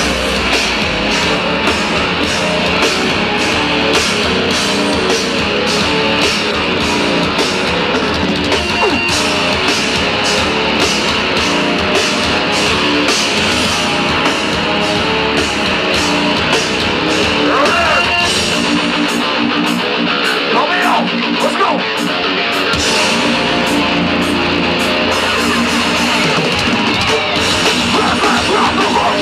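Metalcore band playing live: distorted electric guitars, bass and fast, driving drums. The bass and kick drop out for a few seconds about two-thirds of the way through, then return.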